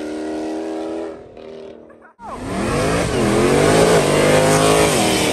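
A car engine holds a steady note and fades, then after a brief break about two seconds in, a Dodge Charger widebody's V8 revs hard in a burnout, its pitch dipping and climbing again twice.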